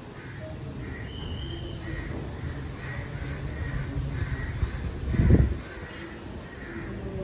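Crows cawing repeatedly over a steady low rumble, with a louder low rumble about five seconds in.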